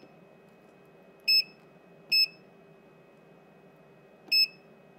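Three short, high electronic beeps from the Vici VC8145 bench multimeter's buzzer, unevenly spaced (about a second in, a second later, then again near the end), as its front-panel buttons are pressed.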